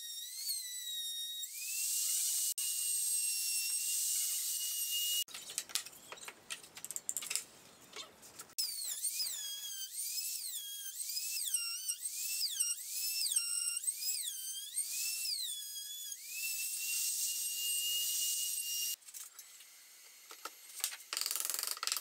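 Trim router running at high speed, a high-pitched whine that repeatedly sags in pitch and recovers as the bit is fed into the wood and eased off, cutting a slot in the board's end. About five seconds in there is a few seconds of rougher, rasping cutting noise, and the whine drops away near the end.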